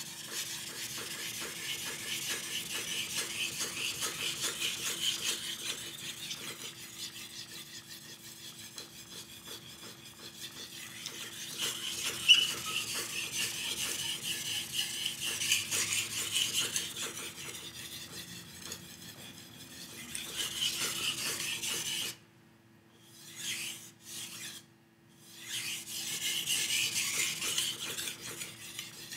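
A knife blade stroked back and forth across a wet 5000-grit whetstone, a steady gritty scraping through the slurry that swells and fades with each pass, as the second side of the edge is sharpened. There is one sharp tick about twelve seconds in, and the strokes break off for a few seconds near the three-quarter mark before resuming.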